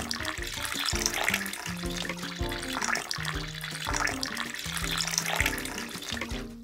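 Thin stream of water running from a miniature faucet and splashing over a Brussels sprout as fingers rub it clean, stopping suddenly at the very end. Background music plays throughout.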